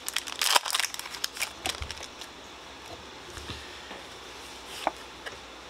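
Foil Pokémon booster pack wrapper crinkling as it is pulled open during the first second or so, followed by a few light taps and slides of trading cards being handled.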